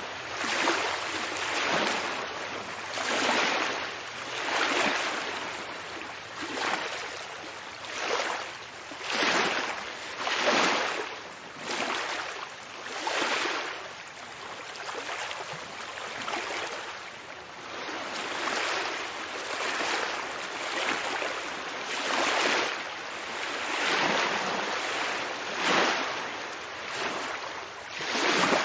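Ocean waves washing in and drawing back, the water noise swelling and fading every second or two.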